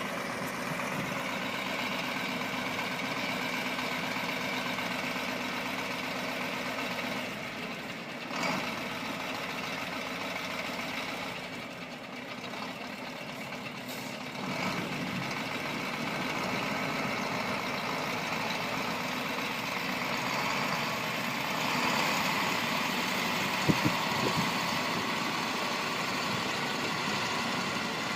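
Heavy construction machine's engine running steadily, with two sharp metallic knocks near the end.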